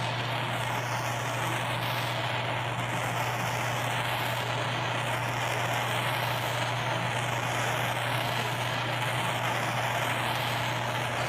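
Handheld propane torch burning with a steady flame roar while it heats a differential bearing.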